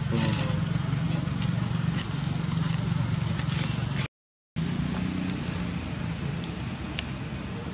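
A motor vehicle's engine running steadily nearby as a low hum, with scattered small clicks and crackles over it. The sound cuts out completely for about half a second about four seconds in.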